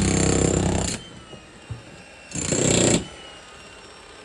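Jackhammer breaking concrete: rapid hammering that stops about a second in, then one more short burst of under a second.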